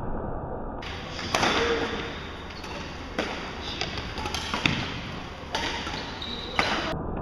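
Badminton rackets striking a shuttlecock in a doubles rally: about five sharp hits, each a second or more apart, over a steady background of play. The sound turns brighter about a second in and duller again near the end.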